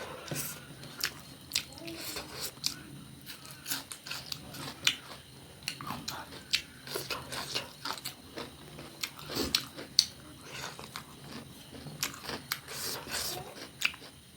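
A person chewing and biting food close to the microphone: irregular crisp crunches and wet mouth clicks, several a second.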